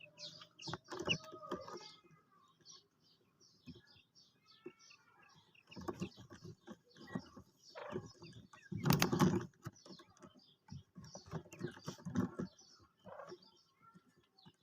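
Birds chirping in quick short notes throughout, with several louder rustling or knocking bursts in the middle, the loudest about nine seconds in.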